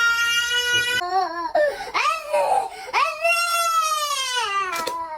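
Baby crying in long, high wails: one held cry, then three or four more cries that rise and fall in pitch.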